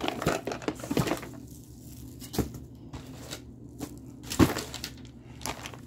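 Boxed items wrapped in plastic cling wrap being handled and set down one after another: crinkling of the wrap with a series of short knocks, the loudest about four and a half seconds in.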